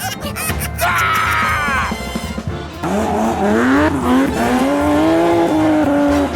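Cartoon vehicle sound effects over background music: a falling, skid-like whine about a second in, then an engine-like drone that rises in pitch and then holds steady to the end.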